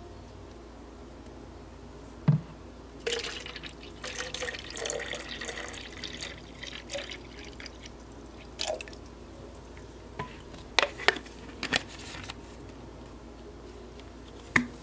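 Water poured from a plastic jug into a plastic water bottle for several seconds, splashing and trickling, after a single knock about two seconds in. A few sharp plastic clicks follow as the bottle's lid is handled and its flip-top closed.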